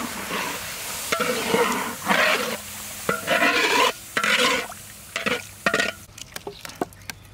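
Metal spatula scraping and stirring braised pork belly cubes in a wok of sizzling sauce, in a series of separate strokes. Near the end come small sharp clicks of boiled egg shells being cracked and peeled.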